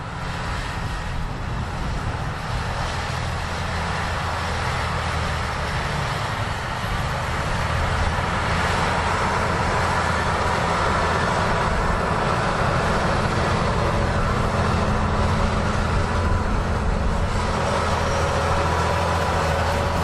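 Fendt tractor's engine running steadily under load as it pulls a BOS Combo-Dozer leveling scraper through loose soil, growing louder as the rig draws close.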